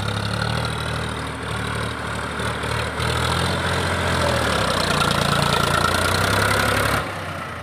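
Powertrac Euro 47 tractor's three-cylinder diesel engine running steadily as the tractor pulls through deep paddy-field mud. It drops off sharply about seven seconds in.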